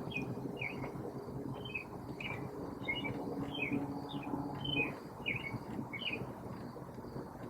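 Birds chirping and calling in quick succession, several short chirps a second, over a faint low hum.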